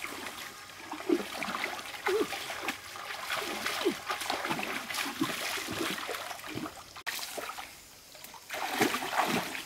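Water in a shallow, muddy stream splashing and sloshing as a person wades and works through it by hand, with irregular hollow plops. It eases off briefly about seven seconds in, then picks up again.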